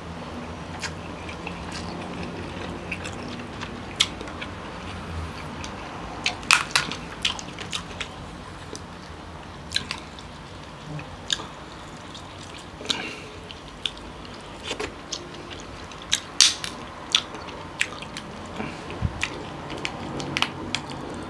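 Cooked king crab leg shells being cracked and pulled apart by hand, with chewing and sucking of the meat. There are irregular sharp cracks and snaps throughout, a few of them much louder than the rest.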